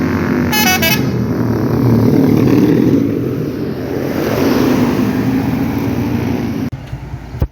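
A brief blast of a telolet multi-tone musical horn about half a second in, over the steady rumble of a large vehicle's engine running close by. The engine noise drops off sharply near the end, followed by a single click.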